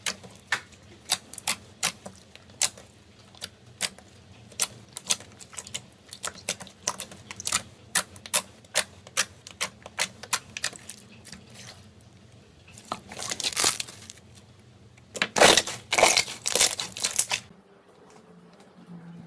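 Slime being pressed and stretched by hand, giving a run of sharp, separate clicking pops. About two-thirds of the way through it turns into louder, denser crackling, which stops shortly before the end.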